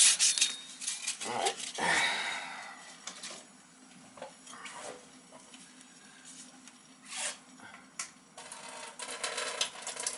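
Rubbing strokes of abrasive on copper pipe stop just after the start. Then come scattered metal clinks, taps and short scrapes as copper fittings and tools are handled, with a denser run of scraping strokes near the end.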